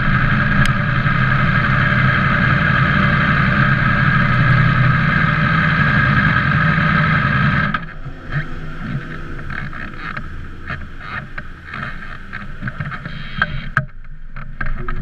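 A motor running steadily, which stops abruptly about halfway through, followed by scattered knocks and clicks.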